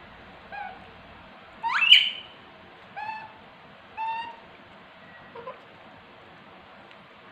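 Baby macaque giving a series of short, high-pitched cries, about five in all, the loudest a rising screech about two seconds in.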